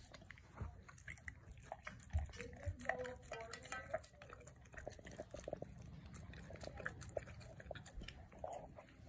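A Cane Corso and a cat eating wet food from a stainless steel bowl: wet chewing and smacking with frequent small clicks and a couple of low knocks. A brief wavering voice-like sound comes about three seconds in.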